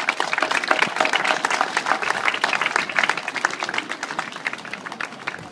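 A small crowd applauding: many hands clapping together, thinning and dying away near the end.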